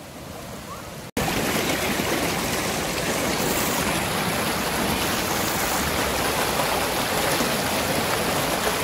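Fast-flowing shallow river stream rushing over rocks, a steady dense water noise. About a second in it cuts abruptly to a louder, closer rush of water.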